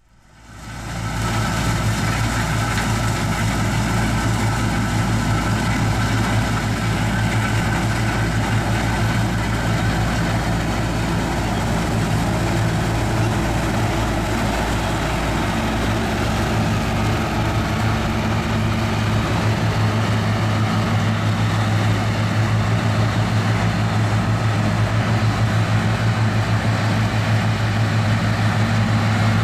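New Holland TR99 combine, with its 6-cylinder turbo diesel, running steadily under load while harvesting soybeans: an even, low engine drone under a haze of threshing-machinery noise. The sound fades in over the first second.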